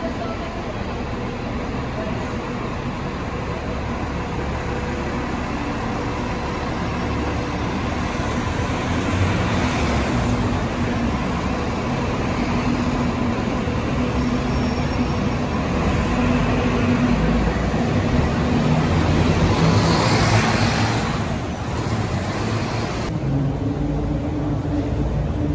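Bus and car traffic under a concrete deck: a double-decker city bus's engine running as it pulls through and away, with cars and a van passing, getting louder about 20 seconds in. Near the end another city bus's engine is heard approaching.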